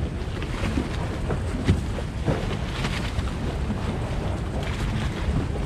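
Motorboat under way on open water: a steady rush of water and low rumble, with wind buffeting the microphone.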